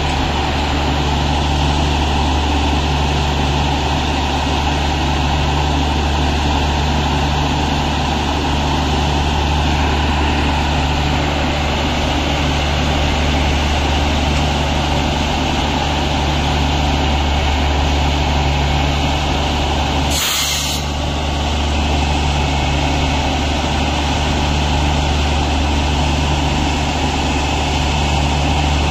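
Heavy diesel engine of a rail utility vehicle (UTV) running steadily with a deep, even hum. About twenty seconds in there is one short, sharp noise, after which the running goes on unchanged.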